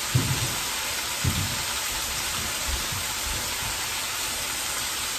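Bell peppers and onions sizzling in a hot skillet on a gas stove, a steady frying hiss. A few soft low thumps sound in the first three seconds.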